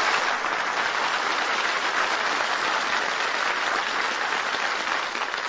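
Studio audience applauding steadily, beginning to die away near the end, heard on an old 1954 radio broadcast recording.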